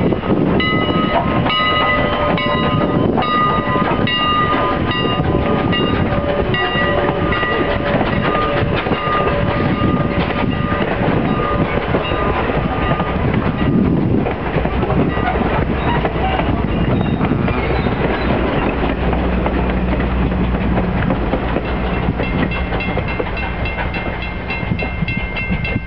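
Strasburg Rail Road's 2-6-0 steam locomotive #89 passing at close range, followed by its passenger coaches rumbling by with wheels clacking over the rail joints. A bell rings repeatedly through the first half or so.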